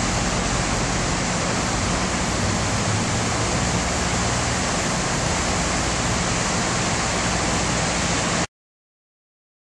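Steady rushing of a swollen, flooding river running over its banks. The sound cuts off suddenly near the end.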